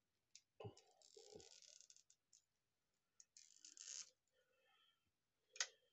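Near silence with faint handling noise of a plastic-packaged action figure and its parts: two brief soft rustles and a few light clicks and knocks.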